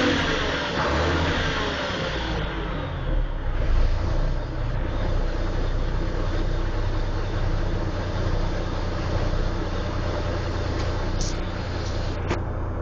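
Mack Thermodyne diesel engine of a 1975 Mack CF600 fire truck, its revs falling back over the first couple of seconds and then idling steadily.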